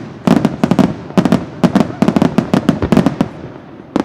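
Aerial fireworks bursting in a rapid barrage: many sharp bangs in quick clusters, thinning out about three seconds in.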